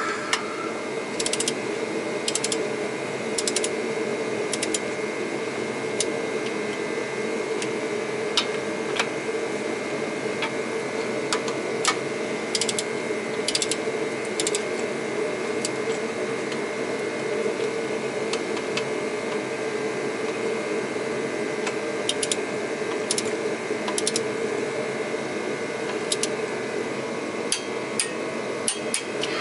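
Long-handled ratchet clicking in short quick runs, with pauses between, as the oiled flywheel bolts are run down. Under it a steady background hum.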